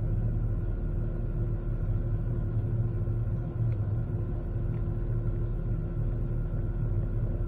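Steady cabin drone of an Airbus A380 in the climb: the low rumble of its four jet engines and the airflow, heard from inside the cabin, with a steady hum riding over it.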